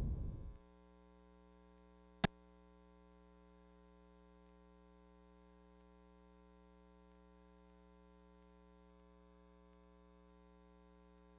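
The loud stage sound cuts off abruptly about half a second in, leaving a faint, steady electrical hum with a single sharp click about two seconds in.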